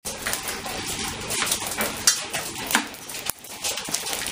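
Lapilli, small volcanic stones from an Etna ash fall, raining onto stone floor tiles: a dense, irregular run of sharp little clicks and clinks of hard grit landing.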